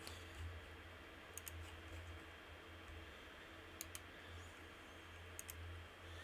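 Faint computer mouse clicks: three quick pairs of clicks a couple of seconds apart, over a low steady hum.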